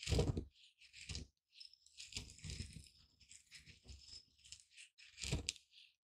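Pestle crushing and grinding dry seeds in a mortar: separate crunching strokes with the seeds rattling against the bowl, a denser stretch of grinding in the middle, and the loudest strokes right at the start and again near the end.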